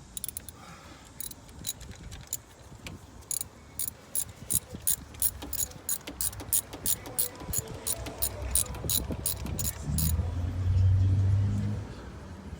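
Ratchet wrench clicking steadily, about three clicks a second, as it turns a spark plug in a car engine's cylinder head; the clicking stops about ten seconds in. A louder low drone follows for about two seconds.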